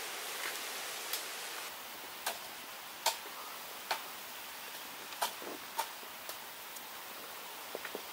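Scattered sharp clicks, about one a second, from roasted beef ribs being pulled apart by hand and eaten, over a steady hiss.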